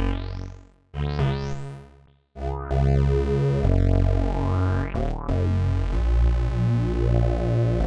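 Crumar Stratus synthesizer played on its keyboard. Two notes die away to silence about one and two seconds in, each opening with a rising sweep. Then held notes over a bass line run on, with the tone swept by hand on the panel knobs.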